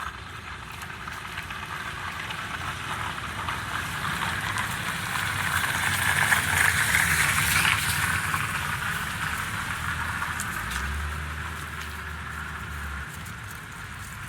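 Passing road traffic: a vehicle goes by, its noise swelling to a peak about halfway and then fading, with a low engine hum briefly near the end.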